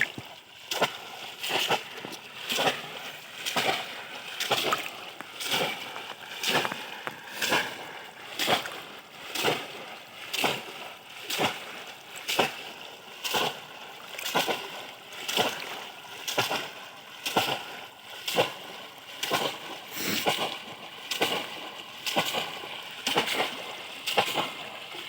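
Water splashing in a steady rhythm, about one splash a second.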